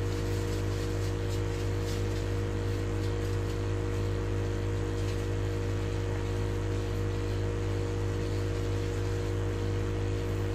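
A small electric pesticide-sprayer pump, running off a motorbike battery, hums steadily under a continuous hiss of spray.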